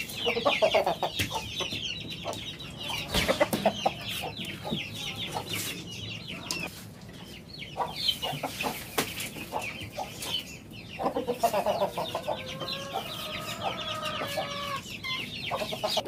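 Aseel chickens clucking in their pen, with one drawn-out call about three-quarters of the way through, over a constant high twittering of small birds and a few knocks.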